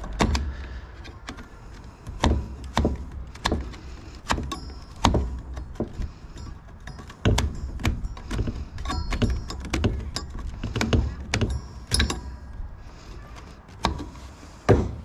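Irregular metal clanks and clicks as a table saw's electric motor and its parts are handled, several knocks ringing briefly, with a loud knock near the end.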